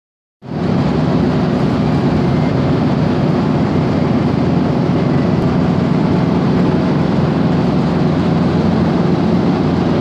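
Drum wood chipper running empty: a loud, steady machine hum and rumble with no wood going through, cutting in just under half a second in.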